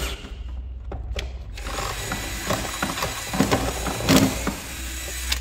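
Cordless screwdriver running in short, uneven bursts as it backs out screws, bogging and stalling because its battery is running low, with sharp clicks and knocks of the tool against the work.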